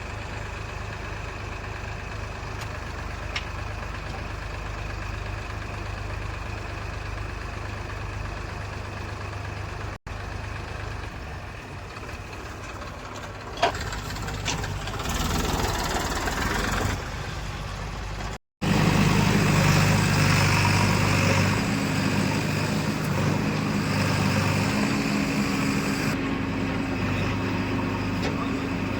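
Diesel engines of a backhoe loader and farm tractors running steadily, broken by two brief dropouts. A sharp click comes just before halfway, and after the second dropout the engine sound is louder and deeper.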